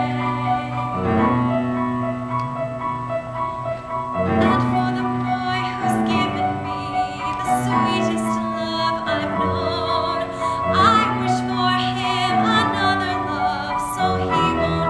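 A woman singing a slow musical-theatre ballad solo over piano accompaniment, holding long notes with vibrato.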